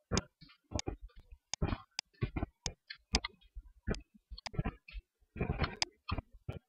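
Computer keyboard keys and mouse buttons clicking at an irregular pace, a few clicks a second with a quick flurry about five and a half seconds in, including repeated Tab key presses.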